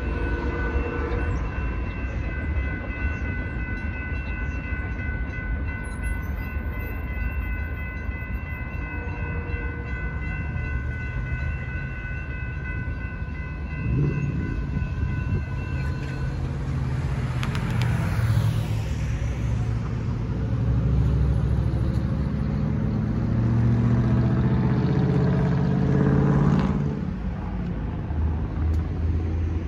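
Railroad crossing warning bells ringing steadily over a low rumble, stopping about halfway through as the gates finish rising. Cars then start up and drive across the tracks, the loudest passing near the end.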